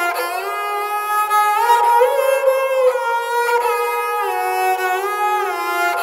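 Dilruba, a bowed fretted Indian string instrument, playing a slow melody of held notes that slide up and down in pitch between them.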